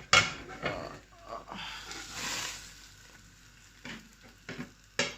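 A plate knocking against a frying pan while an omelette is turned over with it, followed by a brief frying sizzle in the pan and a few more knocks near the end.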